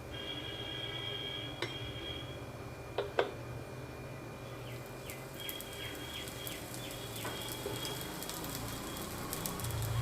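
A dosa cooking on a hot dosa pan in sesame oil, with a faint crackle of frying that builds in the second half. Several metal clinks and knocks of kitchen utensils, the loudest about three seconds in, and some faint high ringing tones.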